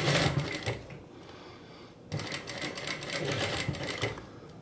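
Singer sewing machine stitching in two short runs, about a second of rapid needle strokes at the start, then a pause, then about two seconds more. It is sewing the final centimetres of the seam that sets a shirt sleeve into the armhole.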